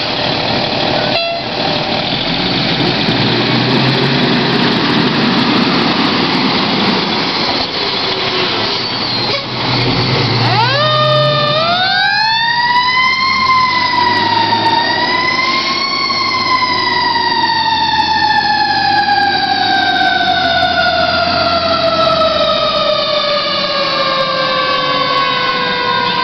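Fire engine's engine running hard as it pulls away. About ten seconds in its siren winds up, dips, rises again, then winds slowly down as the truck drives off.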